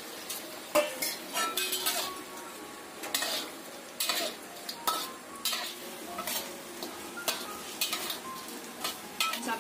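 Metal spatula scraping and knocking against a wok at irregular intervals as raw shell-on shrimp are stirred into a bubbling garlic-butter and oyster-sauce liquid, with sizzling underneath.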